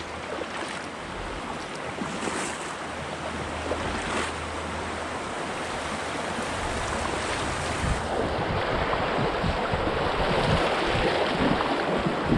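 Fast river current rushing and churning around a kayak hull as it runs through a rapid, growing louder toward the end, with splashes of double-bladed paddle strokes. Wind buffets the microphone in the second half.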